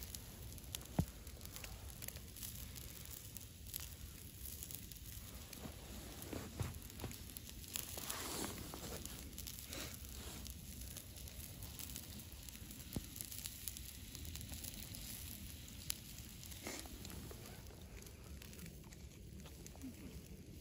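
Faint campfire crackling and hissing, with scattered sharp clicks and brief rustles of food being handled with a stick and fingers.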